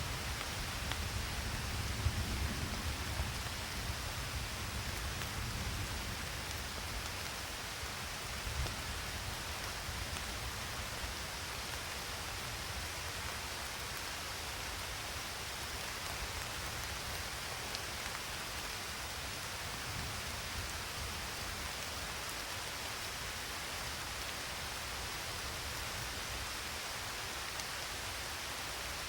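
Steady rain falling, an even hiss with no breaks. A low rumble of thunder dies away over the first few seconds.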